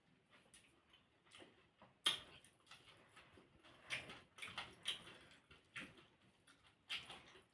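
Close-up eating sounds: irregular chewing clicks and short crunches from a person eating, the sharpest about two seconds in.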